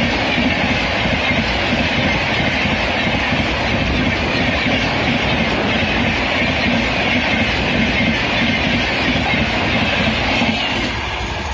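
LHB coaches of a Rajdhani Express passing close at speed: a loud, steady rumble of wheels on rail with a faint clickety-clack, easing off near the end as the power car at the train's tail goes by.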